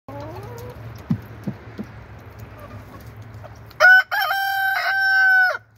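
Chickens clucking while they feed, with a few short knocks, then a rooster crows loudly for nearly two seconds near the end.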